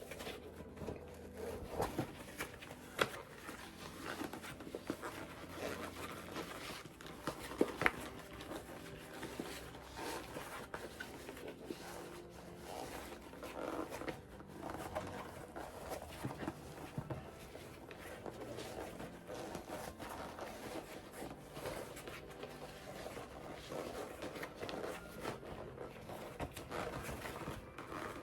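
A stiff vegetable-tanned leather bag being forced right side out by hand: irregular squeaking, creaking and rough rustling of thick leather, with a few sharper snaps. Heavy breathing through the nose comes with the effort.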